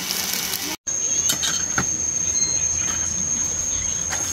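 A brief hiss, the sizzle of foil-wrapped fish on a camping griddle, cuts off under a second in. It gives way to a steady, high-pitched insect whine, with a few light clinks of spoons against pots and plates.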